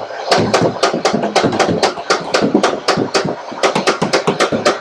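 Nerf Rival Nemesis motorized blaster firing full-auto, a rapid steady stream of shots about five a second.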